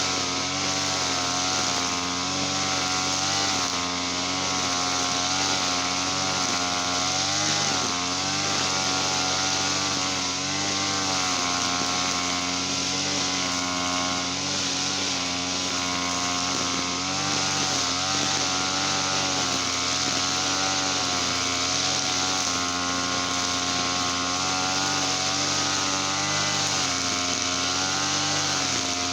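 Small two-stroke engine of a TL33-type brush cutter running steadily at high speed, its pitch wavering slightly and dipping briefly about eight seconds in.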